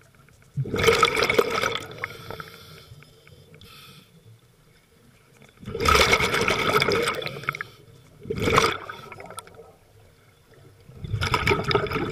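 Scuba diver's exhaled breath bubbling out of the regulator underwater: a rush of bubbles about every five seconds, with quieter stretches between, plus a shorter burst shortly after the middle one.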